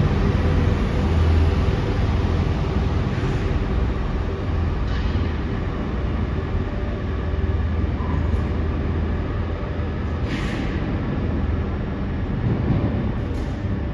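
Z22500 (MI2N) RER E electric train pulling away from the platform and running off into the tunnel: a steady rumble with several steady tones that weaken as it draws away. A few short, sharper noises break through along the way, the clearest about ten seconds in.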